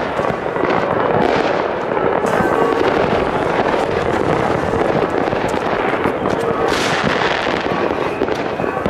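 Fireworks going off without a break: a dense mix of bangs and crackling as a Weco Stormy Flash consumer firework battery shoots its shells into the sky.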